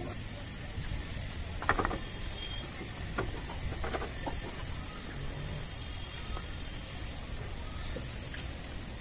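A few light metallic clinks and knocks as the clutch drum and parts of an old-model Royal Enfield Bullet clutch are handled and seated on the shaft, the sharpest about two seconds in, over a steady background hiss.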